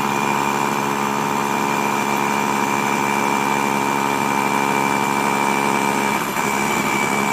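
Corded rotary hammer drill running steadily under load, its masonry bit hammering into a fired clay brick. A steady motor hum and whine throughout.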